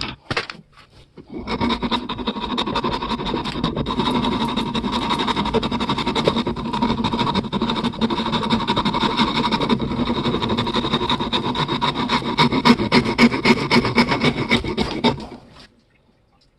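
A small power tool runs steadily while working the metal of the old weapon, with a dense rapid scraping over its steady whine. It starts about a second in and cuts out near the end.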